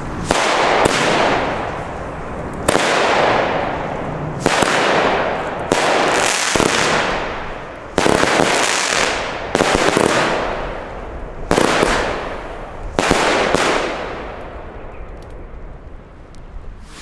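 Weco Big Boom Bastic fan-shaped firework cake firing shot after shot, about eleven in all, one every one to two seconds. Each is a sharp report followed by a noise that fades over a second or so. The shots stop a few seconds before the end and the sound dies away.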